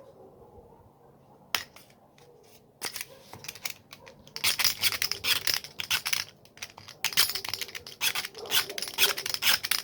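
Stanley knife blade scraping the plastic of an angle grinder's switch button, shaving it down so the sticking trigger can move freely. A few separate clicks at first, then from about four seconds in a quick run of rasping strokes.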